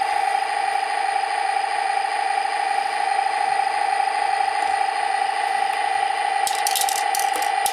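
The Heng Long Tiger I RC tank's built-in sound unit playing a steady simulated engine idle through its small speaker. The tank is switched on and started, with the volume turned down. Near the end come a few light plastic clicks as the turret hatch lid is lifted.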